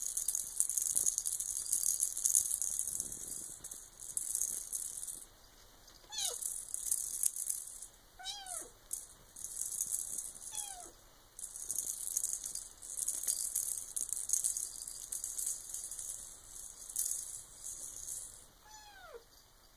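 Silver Bengal kitten giving four short meows that fall in pitch, over repeated stretches of high, dry rattling from a toy being played with.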